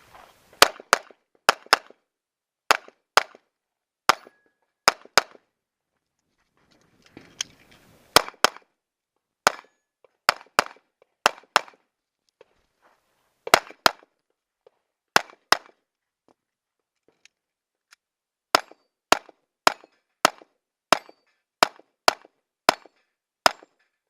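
Gunfire in a timed competition stage: sharp shots, mostly in quick pairs, broken by a couple of pauses of two or three seconds, then a fast even string of about a dozen shots near the end.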